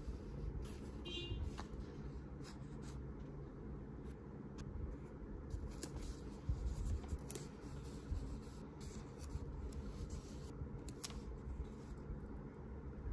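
Paper and sticker-sheet handling: hands smoothing journal pages and lifting a thin sticker sheet, giving scattered light rustles and small ticks over a steady low hum.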